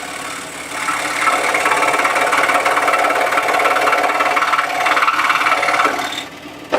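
Scroll saw running, its reciprocating blade cutting through a piece of wood to finish a relief cut. The sound grows louder about a second in and dies away near the end, followed by a brief knock.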